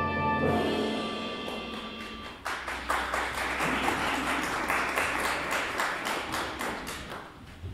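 Instrumental music ends on a held chord that dies away. About two and a half seconds in, an audience breaks into applause, which lasts about five seconds and thins out near the end.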